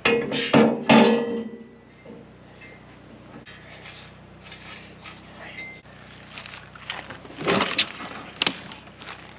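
Heavy steel clamp-on forklift fork clanking and ringing as it is picked up and handled, loudest in the first second or so. Another burst of clattering comes about seven and a half seconds in.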